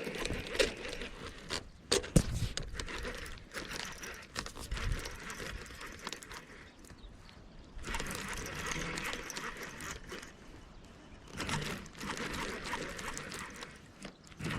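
Fishing reel being cranked in three spells with short pauses between, reeling in a hooked fish, with a few sharp knocks of handling about two seconds in.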